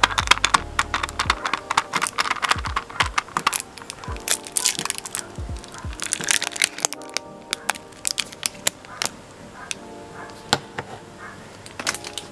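Fingertips poking and pressing slime through the thin clear plastic film over it in a tin, giving quick crackles and small pops that come thick and fast in the first half and only now and then after that. Soft background music plays alongside.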